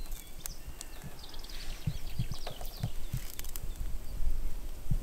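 Outdoor ambience of small birds chirping in short, repeated calls, over a low rumble with scattered soft thumps and clicks.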